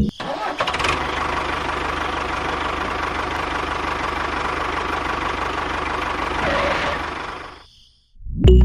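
Small engine running steadily with a fast even beat, fading out near the end.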